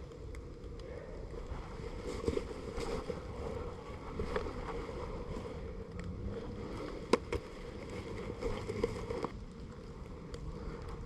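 Rustling movement with wind noise on the microphone, broken by a few sharp clicks, the loudest about seven seconds in.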